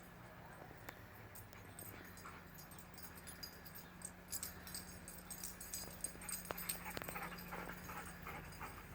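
Two dogs playing chase: faint whimpers and scuffling, busier with short sharp sounds from about four seconds in, over a steady low hum.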